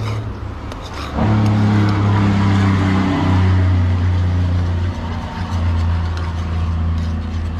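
A motor vehicle's engine running with a steady low hum. It grows louder about a second in and then holds, with small shifts in level.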